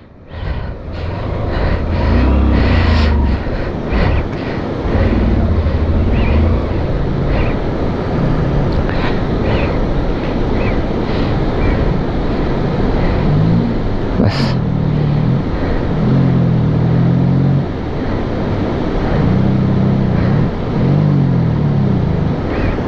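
Motorcycle engine running and revving unevenly in low gear, its pitch rising and falling, over the steady rush of stream water at a water crossing. One sharp click about two-thirds of the way through.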